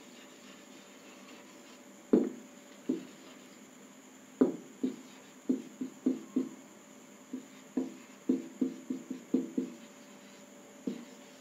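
Marker pen writing on a whiteboard: an irregular string of short knocks and taps as the tip strikes and strokes the board, each with a brief ring from the board. It starts about two seconds in.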